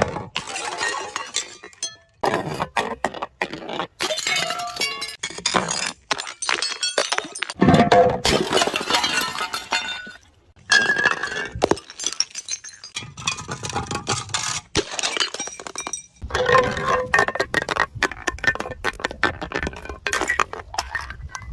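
Glass bottles breaking: shards clinking and crunching in dense clusters of sharp impacts, in repeated bouts separated by short pauses.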